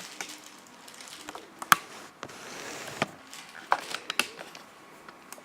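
Hands handling small plastic tablet accessories and their packaging: scattered light clicks and taps over soft rustling, with the sharpest click about a second and a half in.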